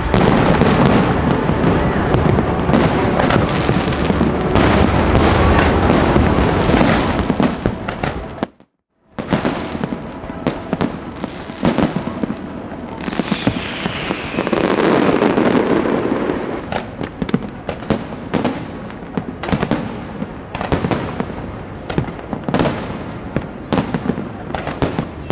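Fireworks show: aerial shells bursting in a dense, continuous barrage of bangs and crackling, then, after a brief break about nine seconds in, many separate sharp bangs with another thick flurry midway.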